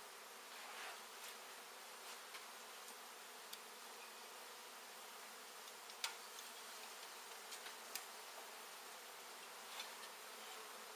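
Large honey bee colony buzzing, a faint steady hum, with a few sharp ticks scattered through it, the loudest about six seconds in.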